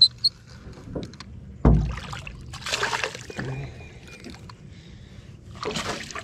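A hooked small bass splashing at the surface beside a boat in several bursts, with a single thump a little under two seconds in. The dry, un-oiled reel of a kids' Barbie fishing rod squeaks faintly as it is cranked, because it needs oil.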